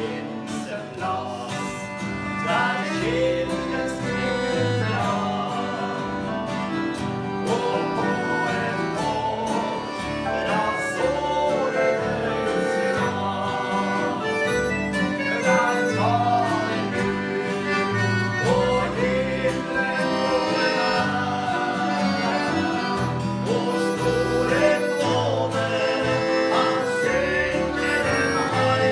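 Two men singing a Christian song to a strummed acoustic guitar, with low bass notes changing underneath.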